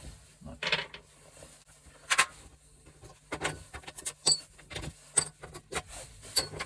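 Irregular metallic clinks and knocks of gas-stove parts being handled and taken apart, with the loudest knock about two seconds in.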